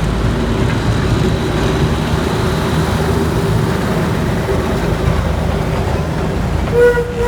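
Full-size Thomas ride locomotive running with a steady low rumble, then a short whistle toot near the end.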